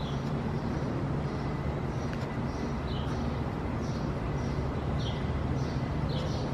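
Steady low outdoor rumble with short, high bird chirps repeating every second or so.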